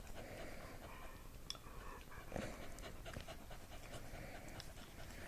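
A dog panting softly, with a few faint clicks.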